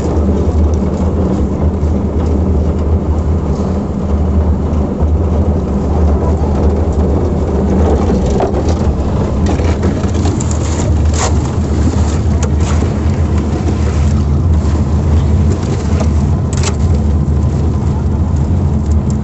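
An engine running steadily with a low drone, with a few sharp knocks or clanks about eleven, twelve and a half, and sixteen and a half seconds in.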